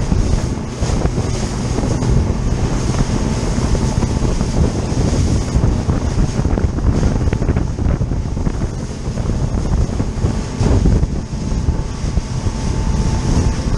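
Wind buffeting the microphone of a RIB at speed, over the steady drone of its engine and the rush and slap of water and spray against the hull.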